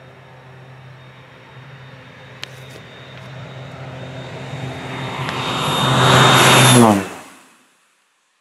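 Air Tractor crop-spraying plane making a low pass: the engine and propeller grow steadily louder as it approaches, and the pitch drops as it passes close by. The sound then cuts off abruptly about seven and a half seconds in.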